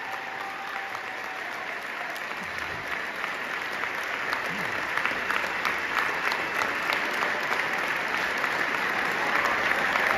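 Large audience applauding, a dense steady clapping that grows louder toward the end.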